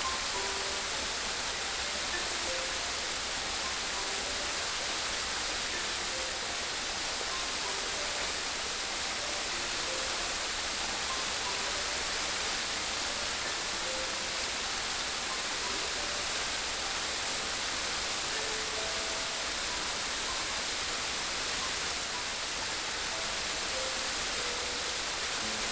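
Steady rushing of flowing water, an even hiss with no breaks, with faint scattered notes of soft music over it.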